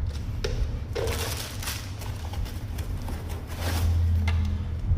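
Handling noise: a few separate clicks and knocks as the camera and its parts are handled, over a steady low hum.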